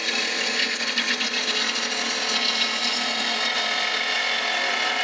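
Bowl gouge cutting into a spinning wood bowl blank on a lathe: a steady, rough scraping hiss as shavings peel off the wood.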